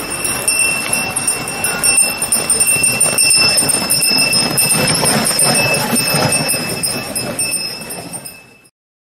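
Harness bell on a sleigh horse ringing steadily as the horse trots, with the horse's hoofbeats underneath; it fades out near the end.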